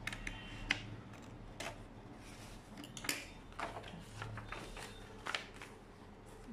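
Scissors snipping through a sheet of paper pattern in the first second or so, then paper rustling as the cut piece is handled, with scattered light clicks.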